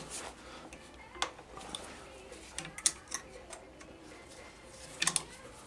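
Scattered sharp metal clicks and ticks of a hex key being worked in a bolt on a motorcycle footpeg bracket, with a quick cluster of clicks near the end.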